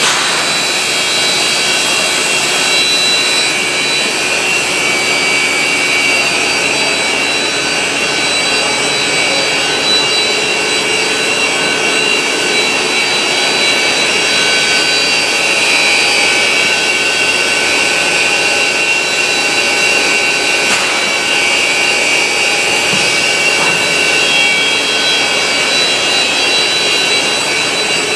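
Steady, loud running noise of an industrial shear cross-cutting line and its roller conveyor, with several steady high-pitched whines over an even mechanical rush.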